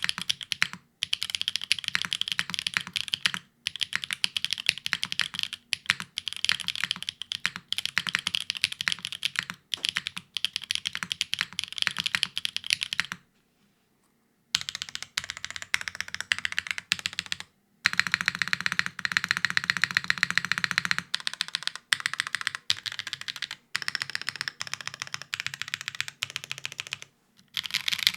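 Typing on a Spyder TKL mechanical keyboard with Gateron X Siliworks Type R tactile switches, a polypropylene plate and no foam: a fast, steady stream of keystrokes, broken by a few short pauses, the longest about halfway through.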